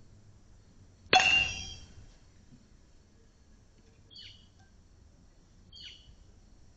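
A StringKing Metal 2 BBCOR metal baseball bat hitting a pitched ball once, about a second in: a sharp ping that rings and dies away within about a second. Two short bird chirps follow later.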